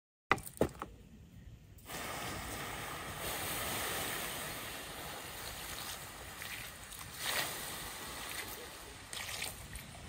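A few sharp clicks, then from about two seconds in a steady rush of flowing water, like a stream.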